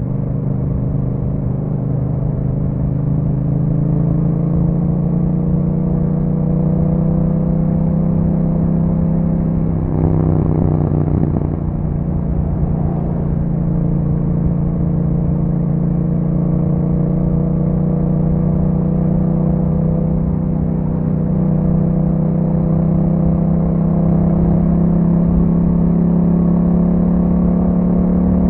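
2021 Yamaha MT-07's parallel-twin engine running through an Akrapovic exhaust while riding, its note climbing slowly in pitch. The note breaks briefly about ten seconds in, then steadies and climbs again.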